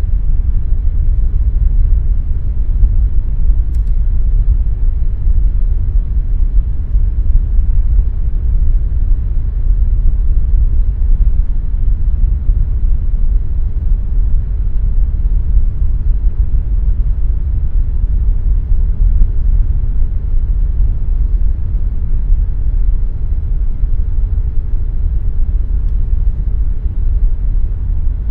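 Air conditioner running steadily: a deep, even rumble of air and fan noise with a faint steady hum above it.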